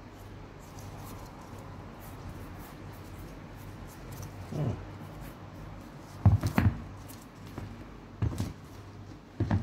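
Handling noise from a sneaker in gloved hands: soft rustles and a few dull thumps as it is turned over and set down on the floor, the loudest thumps about six seconds in, over a low steady hum.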